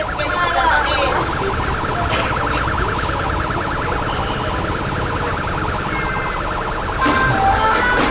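A rapidly pulsing, siren-like electronic tone over steady street noise, with music starting about seven seconds in.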